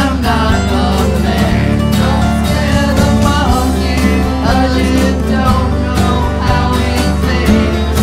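Country-style band music with guitar over a steady beat, a winding melody line carried above it.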